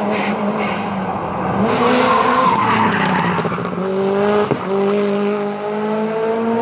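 Rally car accelerating hard uphill through a bend and past, its engine pitch stepping up and down with gear changes, with a stretch of tyre squeal about two seconds in.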